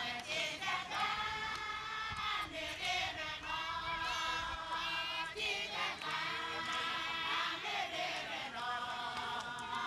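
A group of women singing a chant together, in phrases of two or three seconds with short breaks between them.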